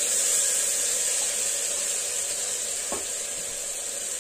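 Chickpea, onion and tomato masala sizzling in hot oil in an open pressure cooker, stirred with a wooden spatula, with a single knock about three seconds in.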